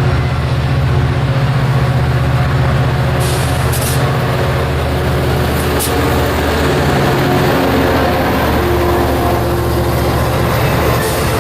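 Diesel locomotive engine running with a steady low drone, with a few short air hisses.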